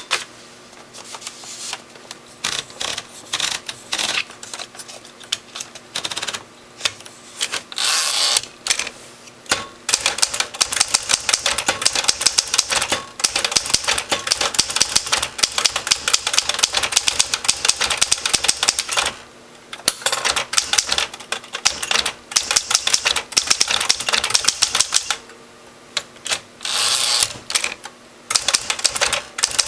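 Smith-Corona manual typewriter being typed on: key strikes clacking against the platen. They come slow and scattered at first, then settle into a fast run of keystrokes broken by two short pauses.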